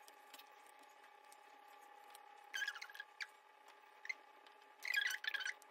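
Paper template being torn away from a fabric epaulette: short bursts of paper tearing and crinkling, starting about two and a half seconds in, the loudest near the end.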